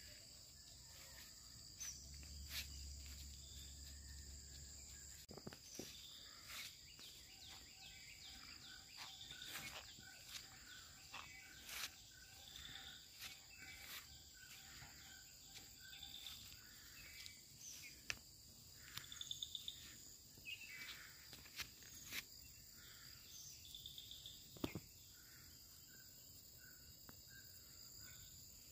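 Faint rural outdoor ambience: a steady high insect drone, with scattered short bird chirps and a few sharp clicks.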